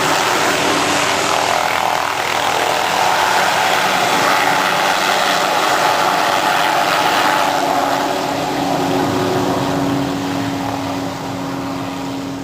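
Robinson helicopter running through its takeoff, a steady rotor and engine drone. It eases off somewhat in the second half.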